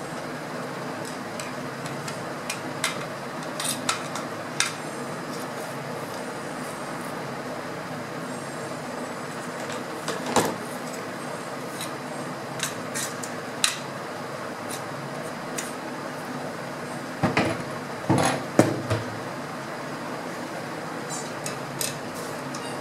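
Metal parts of a Hatsan spring-piston air rifle knocking and clinking against each other and the tabletop as the gun is handled and fitted back together. Single knocks every few seconds, with a cluster of louder knocks about two-thirds of the way in, over a steady background hiss.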